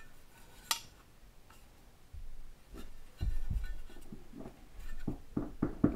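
Light handling noise of a bent piece of thin sheet steel being worked by hand: a sharp click about a second in, then scattered low knocks and small clicks.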